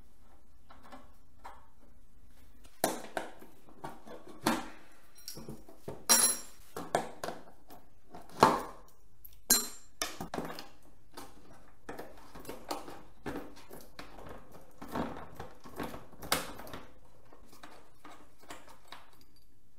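Scattered clinks, knocks and clatter of hand tools and small metal hardware being handled during the disassembly of a Harley-Davidson Tour-Pak luggage box, with a couple of short metallic rings near the middle.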